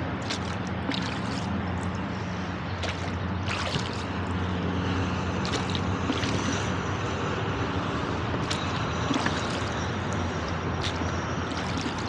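Oars of a rowboat dipping and pulling through the water, with short splashes and drips every second or two over a steady drone of highway traffic from a nearby bridge.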